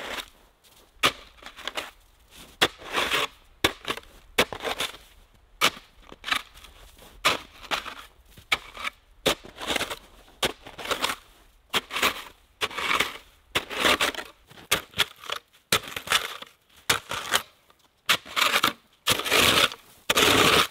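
Compact snow shovel digging into packed snow: repeated crunching scoops and scrapes, each starting with a sharp strike of the blade, about one a second.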